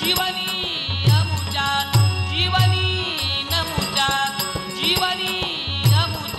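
Instrumental folk devotional music: a harmonium plays a sustained melody over deep beats on a two-headed barrel drum, with small hand cymbals ringing.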